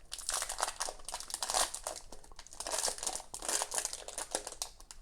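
Protein bar wrapper being torn open and crinkled by hand, in a series of short crackly bursts.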